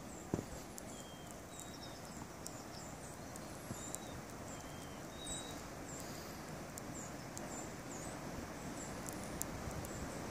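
Steady blizzard wind rushing, with small birds giving short chirps over and over, and a sharp click about half a second in.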